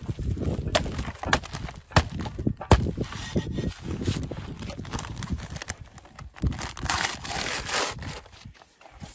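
Steel shovel blade jabbing repeatedly into a paper sack of Portland cement in a plastic tub to cut it open, giving a run of sharp knocks and thuds, then crinkling paper and the scrape of the blade scooping the cement powder near the end.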